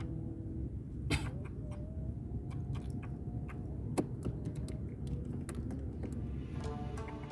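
Wind rumbling on the microphone, with light clicks and taps as fishing tackle, a rod, reel and line, is handled; a sharper click about four seconds in. Music fades in near the end.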